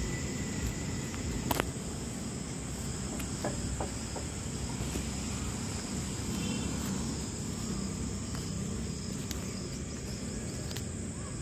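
Steady high-pitched insect chirring over a low outdoor background rumble, with a sharp click about one and a half seconds in.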